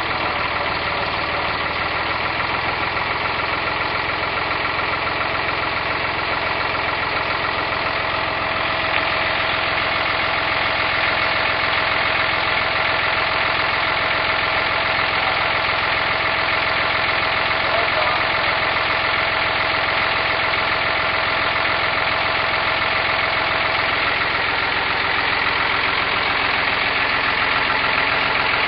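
Tractor engine running steadily, a little louder from about nine seconds in.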